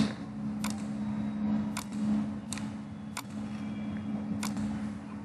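Computer mouse clicking five times, single sharp clicks about a second apart, over a steady low hum.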